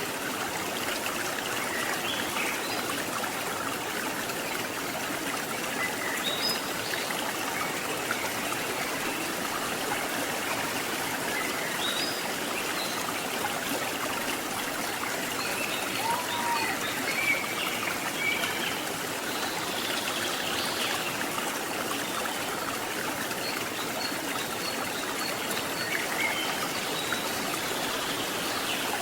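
Stream water rushing steadily over rocks, with faint short chirps here and there above it.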